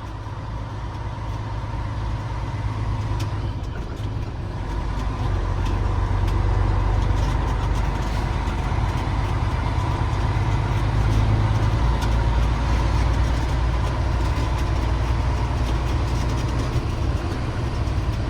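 Loaded grain truck's engine running steadily, getting louder about five seconds in as the truck pulls ahead.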